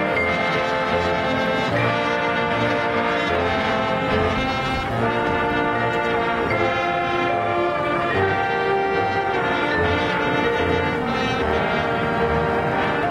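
Marching band brass section playing sustained chords that change every second or two over low bass drum beats.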